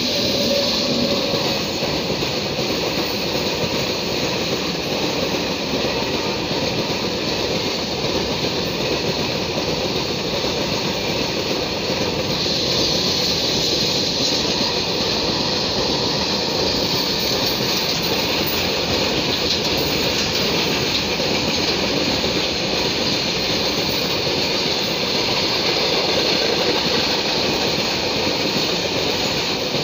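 Freight train of open-top wagons passing close by, its wheels running on the rails with a steady loud clatter. The sound rises sharply at the very start as the wagons reach the microphone, then holds steady.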